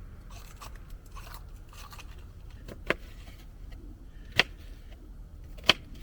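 Kitchen knife cutting an onion on a small cutting board: a few soft crunching slices, then three sharp knocks of the blade on the board, about a second and a half apart.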